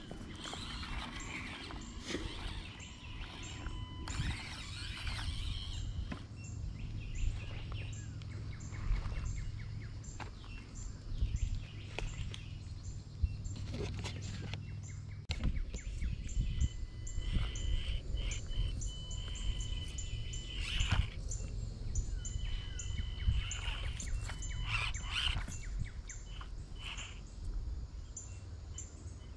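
Birds chirping and calling in woodland over a steady low rumble, with scattered short clicks and taps.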